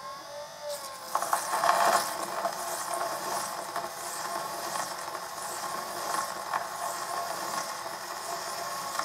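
A high-speed-steel lathe tool's cutting edge being honed on a slow-turning diamond lapping plate driven by a windscreen-wiper motor. The motor hums steadily, and from about a second in there is a continuous scratchy, metallic rasping of the steel against the diamond plate.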